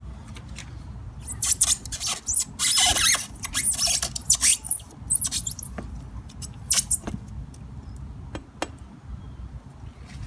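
The steel blade of a homemade competition-style chopper scraped across the rubber tread of a car tyre, giving a run of harsh, high scraping strokes in the first half, followed by a few short, sharp clicks.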